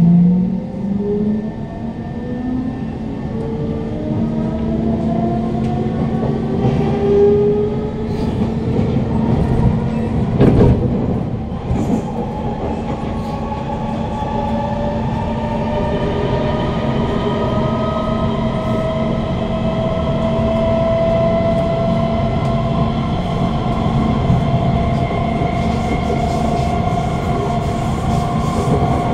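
Kawasaki C151 train's GTO-VVVF traction motors whining under strong acceleration, several motor tones climbing steadily in pitch over the rumble of wheels on rail, heard from inside the motor car. A brief loud rush of noise comes about ten seconds in.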